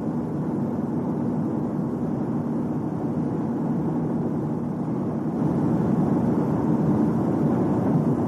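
Steady vehicle running noise, a dense rumble without clear tones, which grows louder about five seconds in.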